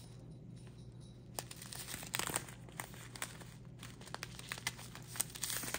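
Plastic resealable pouches of diamond painting drills crinkling as they are handled and shuffled, in a string of light, scattered crackles.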